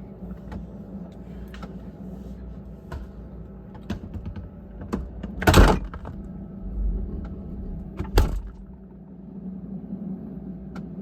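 Refrigerator humming steadily, with scattered small clicks and rattles and two louder knocks, one about five and a half seconds in and a sharper one about eight seconds in.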